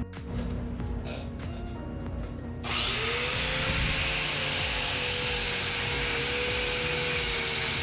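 Power wire brush spins up about three seconds in, with a brief rising whine, then runs steadily, scouring burnt paint and scale off fresh welds on steel.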